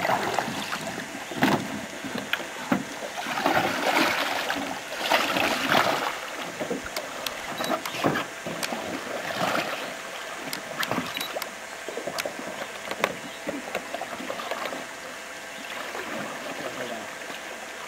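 Canoe paddles dipping and pulling through calm water, with splashing and dripping that is loudest in the first six seconds, and scattered sharp knocks throughout.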